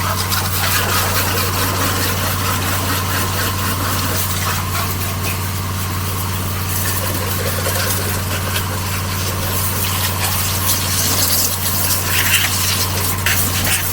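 Pressure washer running steadily: its motor hums at a constant pitch under the loud hiss of the water jet spraying dirt off a mower deck.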